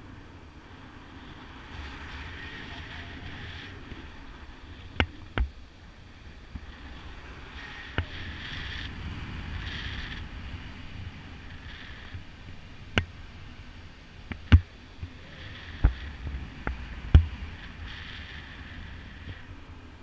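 Wind rushing over a camera microphone on a paraglider in flight, swelling and easing every few seconds, broken by several sharp knocks or snaps, the loudest in the second half.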